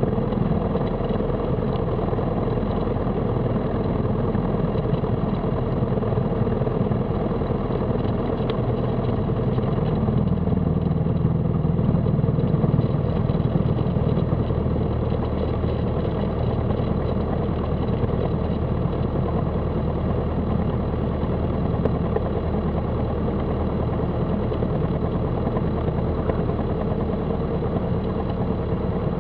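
Cessna 172's piston engine and propeller running at low taxi power: a steady drone, briefly a little louder about twelve seconds in.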